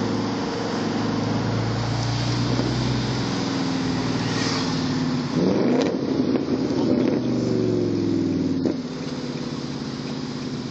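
Audi S5 with an aftermarket exhaust accelerating hard, heard from inside a neighbouring car: a steady engine drone, then from about five seconds in a louder, rising exhaust note that cuts off sharply some three seconds later as the driver lifts off.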